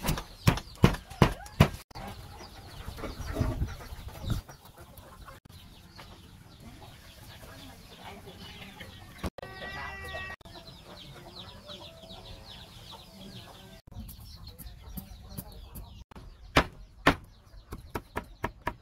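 Stone pestle pounding in a stone mortar, a quick run of knocks. Then a quieter stretch with one drawn-out animal call about ten seconds in. Near the end, a knife chopping garlic on a wooden block, a fast run of sharp knocks.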